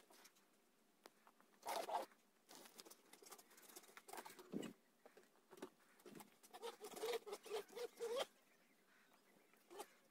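Faint, scattered scuffling and rustling as two dogs run and play on grass, with a busier spell of short noises from about six to eight seconds in.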